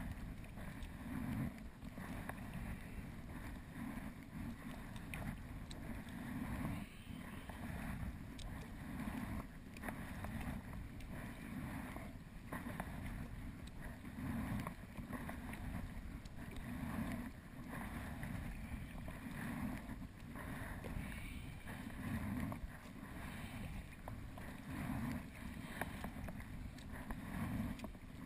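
Sea kayak paddling: water swishing and lapping at the hull in a steady rhythm, a swell of sound about every second and a half, with a few faint knocks.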